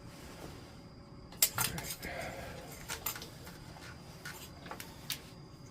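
Hands-on work on a motorcycle frame: a few sharp metallic clinks and knocks, the loudest about a second and a half in, with a brief rustle just after it.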